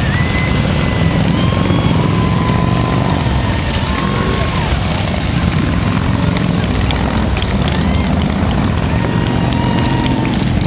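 Engines of big touring motorcycles running as the bikes ride past one after another at low speed: a loud, steady, continuous rumble.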